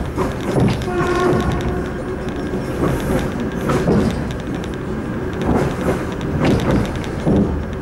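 Suburban passenger train running at speed, heard from inside the car: a steady rumble of wheels on the rails, with knocks now and then as the wheels pass rail joints. A short pitched whine comes in about a second in.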